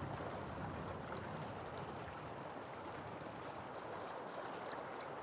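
Fast river current flowing steadily, an even rush of water.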